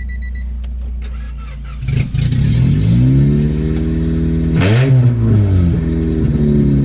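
A 1993 Honda Civic hatchback's four-cylinder engine catches about two seconds in on a jump start, revs up, gets a quick throttle blip around five seconds, then settles to a fast steady idle. It is loud and raw because it has no exhaust past the manifold. A short electronic beeping sounds at the start.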